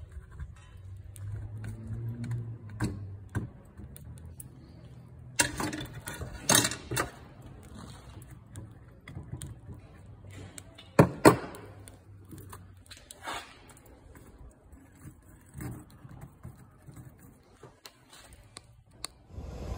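Steel crucible tongs clinking and knocking against a clay crucible and the rim of a small gas-fired melting furnace, over the low steady rumble of the burner. The sharpest knocks come as a double knock about halfway through.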